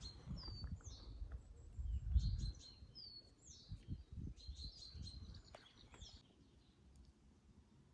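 A songbird singing short high chirps and quick slurred whistles in repeated phrases, stopping about six seconds in. Under it run irregular low thumps and rumble, loudest about two seconds in.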